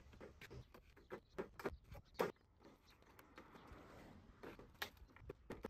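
Faint, scattered clicks and knocks of hollow PVC fence pickets being handled, set into the bottom rail and tapped down by hand. There are about a dozen irregular taps, the sharpest about two seconds in.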